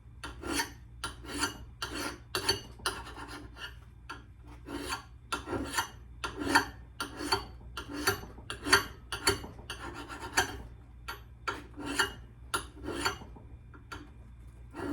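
Triangle file scraped in quick repeated strokes along the steel edge of an old axe head, sharpening it, about two to three rasping strokes a second, stopping near the end. The file is clogged with grime, which he blames for it not cutting well.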